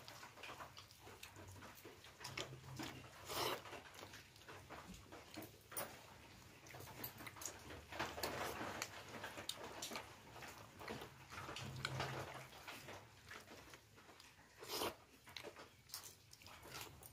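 A person chewing and eating food close to the microphone: irregular crunches and wet mouth clicks, with a few louder crunches.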